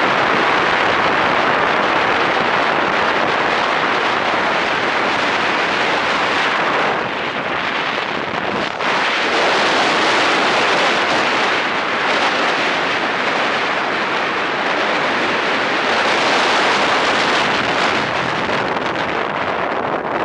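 Loud, steady rush of wind buffeting the microphone on a moving land yacht under sail, easing briefly about seven seconds in before picking up again.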